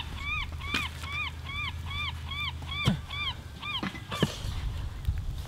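A bird calling in a rapid run of about a dozen short, arched notes, about four a second, with a few sharp knocks of an axe splitting firewood, the strongest about three seconds in.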